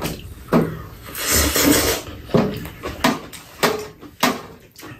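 Eating sounds at a meal: a drawn-out slurp of kimchi glass noodles about a second in, and several sharp clicks of chopsticks and spoons against bowls.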